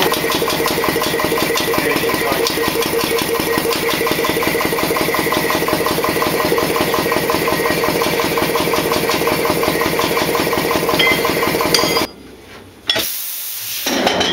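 Air compressor running steadily with a fast, even chugging to recharge the starting-air cylinder of a Blackstone oil engine, then cutting off abruptly near the end, followed by a short loud burst and a hiss.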